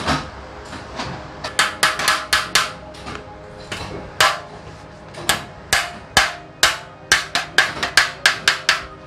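Hammer blows on a steel punch held against an aluminium ladder rail, sharp metallic strikes that ring briefly. They come in quick runs: about five near the start, a single blow in the middle, then a dozen in a row toward the end.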